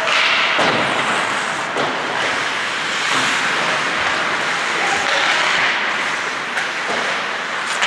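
Ice hockey play: a steady scrape and hiss of skate blades on the ice, with a few sharp clacks of sticks and puck.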